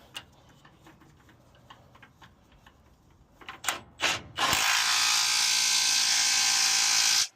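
A few light clinks of hand tools, then a small power tool runs steadily for almost three seconds, spinning a nut down on the track bar mount, and cuts off suddenly.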